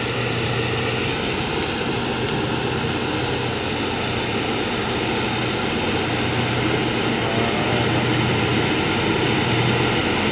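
Diesel engine of a railway ballast-tamping machine running with a steady low drone as the machine rolls slowly along the track, growing a little louder as it approaches. A light regular ticking runs along with it, about three times a second.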